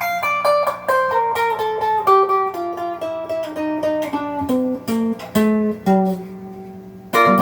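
Gearit Telecaster-style electric guitar in the middle pickup position, its two pickups out of phase from a factory wiring or magnet error, giving a thin, honky "goose honk" tone. A run of single picked notes steps downward in pitch, and a louder strummed chord comes in near the end.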